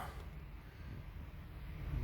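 Quiet, steady low background rumble with a faint hiss, with no distinct events.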